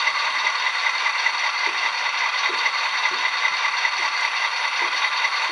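Soundtraxx Tsunami sound decoder in an H0 scale Bachmann F7 model locomotive, playing its diesel engine sound through the model's small speaker: a steady, even rattling idle.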